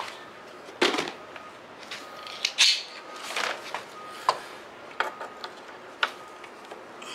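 Sharp clicks and light metallic clanks of a hand tool working at the oil drain hose fitting on a zero-turn mower's engine, about six separate knocks spread over several seconds.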